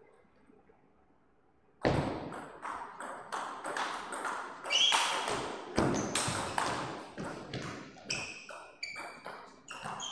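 Table tennis rally: the plastic ball clicking off the table and the rubber-faced bats in a quick, uneven series of sharp knocks, starting about two seconds in after a short quiet moment.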